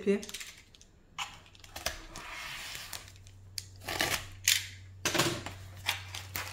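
Thin plastic mailer bag being handled and pulled at to get it open: irregular rustling and crinkling with scattered small clicks and scrapes.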